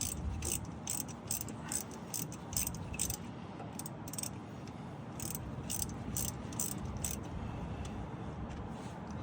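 Ratchet wrench clicking in short strokes, about two to three clicks a second, then stopping about seven seconds in, as the bolt that holds the pinion shaft in a GM 10-bolt differential is backed out.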